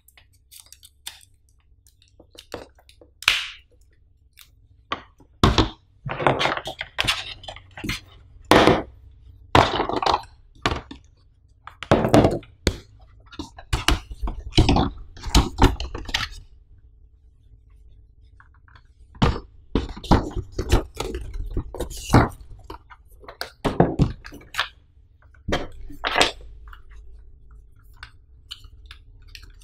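Hands handling a MacBook Air's plastic power adapter, its cord and the cardboard box tray and folder: irregular knocks, clicks and rustles, with a short pause about halfway.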